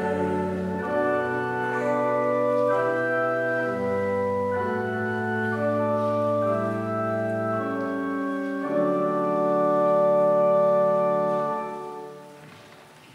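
Electronic stage keyboard playing slow, sustained organ-like chords that change step by step, a closing instrumental passage that dies away about twelve seconds in.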